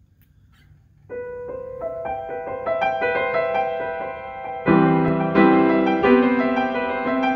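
Grand piano playing: a light line of repeated notes starts about a second in, then low notes and fuller chords come in, louder, a little past halfway.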